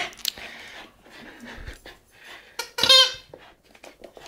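West Highland terrier mouthing and tugging at an orange ball held in a hand, with soft scuffling and chewing noises. One short, loud, high squeak comes about three seconds in.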